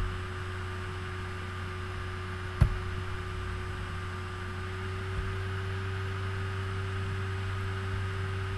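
Steady electrical mains hum with a faint hiss on an open computer microphone, and a single sharp click about two and a half seconds in.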